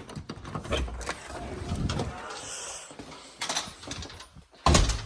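A person moving about on foot: scattered knocks, footfalls and shuffling, with one loud thump near the end.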